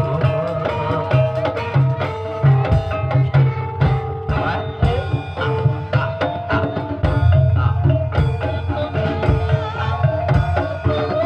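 Live ebeg accompaniment music in dangdut kreasi style: hand drums, typically kendang, beat a steady rhythm under held melodic tones.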